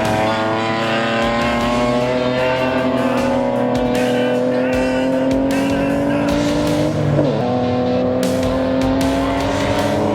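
BMW race car engine pulling hard under acceleration, its pitch climbing steadily. About seven seconds in there is a quick upshift, with a brief dip in revs, and then it climbs again.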